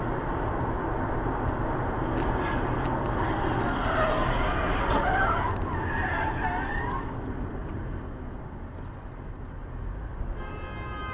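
Steady road and engine noise inside a car on a highway, with a wavering tyre squeal from a skidding car about four to seven seconds in.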